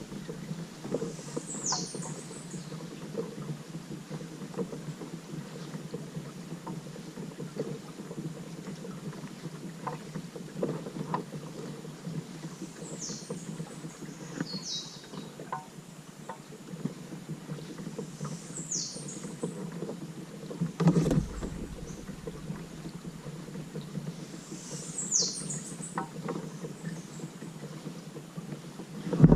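Water sloshing and lapping around a kayak with small paddle splashes, a low thump about two-thirds through. A bird gives short high falling chirps about five times.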